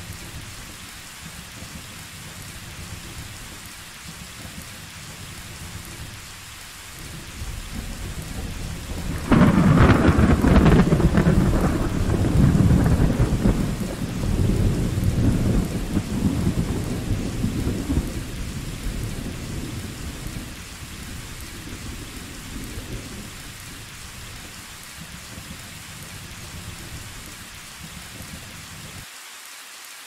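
Steady rain with a thunderclap. About a third of the way in, thunder builds, breaks with a sudden loud crack and keeps rumbling for several seconds, then fades back under the rain.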